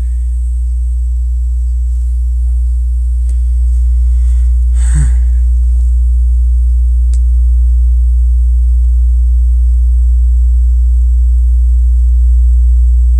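Subwoofer playing a loud, steady, very deep bass tone that holds unchanged, with fainter overtones humming above it.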